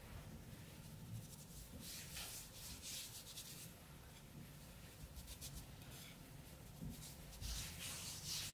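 Fingers rubbing and patting flour into raw chicken breast on a wooden cutting board, a faint dry brushing that comes in several bursts, the longest about two seconds in and another near the end.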